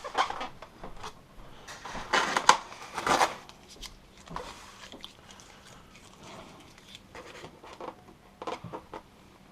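Styrofoam packing pieces being pulled out of a cardboard box and tossed aside: scraping, creaking and knocking handling noises, loudest in a cluster about two to three seconds in, then sparser and fainter.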